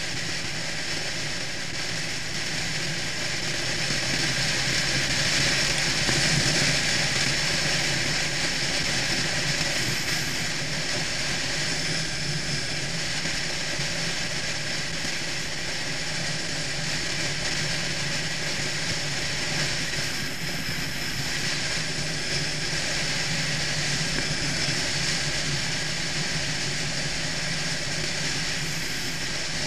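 Motorcycle cruising at a steady speed: a steady engine hum under wind rushing over the bike-mounted camera's microphone, swelling slightly a few seconds in.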